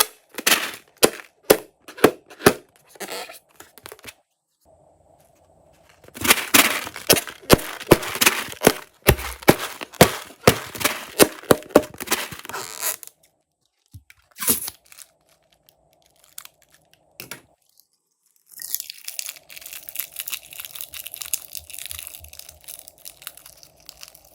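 Slime being squeezed and stretched by hand, crackling and popping: separate sharp snaps at first, then a long run of dense crackling, and more crackly squishing near the end.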